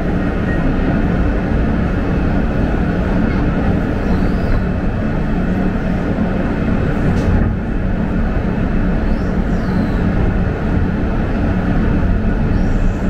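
R160 subway car running through a tunnel, with a loud, steady rumble of wheels on rails and a sharp click about seven seconds in.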